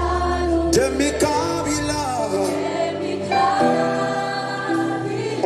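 Gospel worship music: a congregation singing held notes over a keyboard accompaniment, with a low bass note that drops out about two seconds in.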